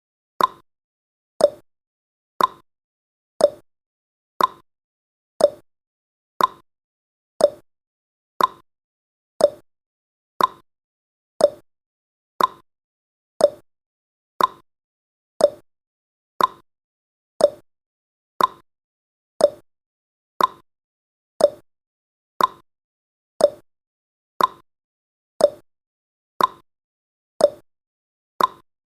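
Countdown timer's ticking sound effect: one short, sharp tick each second, evenly spaced.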